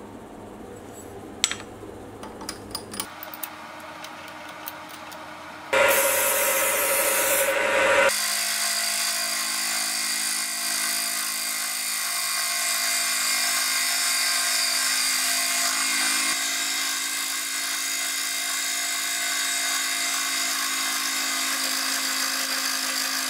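A few light metallic clicks from a hex key tightening the vise-jaw screws, then about six seconds in the Sieg X2.7L mini milling machine starts facing an aluminium plate: a steady motor whine with the hiss of the cutter taking a skim cut.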